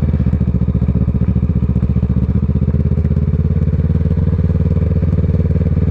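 Kawasaki ER6n's parallel-twin engine running at steady low revs through an aftermarket Scorpion exhaust, its pitch held even as the bike rolls along.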